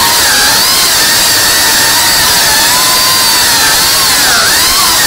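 The brushless motors and ducted propellers of a cinewhoop FPV quadcopter buzz with a high, steady whine over a hiss. The pitch wavers up and down as the throttle changes in flight.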